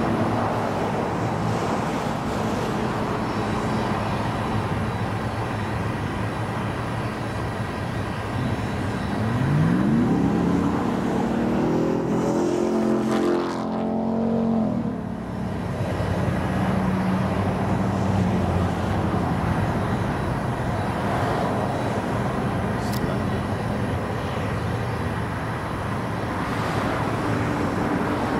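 Aircraft engines running across an airfield: a steady low engine hum over a rushing noise. About nine seconds in, a whine rises in pitch for a few seconds and breaks off suddenly; after that a steady engine drone continues.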